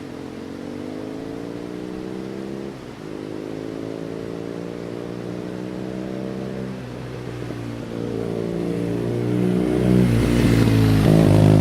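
BMW R nineT's 1170 cc boxer twin through its stock exhaust with the baffle (dB killer) removed, accelerating toward the microphone. The pitch climbs and drops twice, about 3 s and 7 s in, as it shifts up. It grows much louder as it comes near and is loudest at the end.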